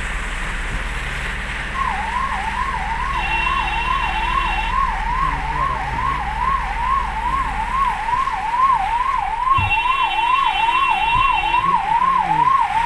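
Police siren in a fast up-and-down warble, about two cycles a second, starting about two seconds in. Under it runs a steady rush of noise and a low engine rumble, heard from inside a vehicle cabin.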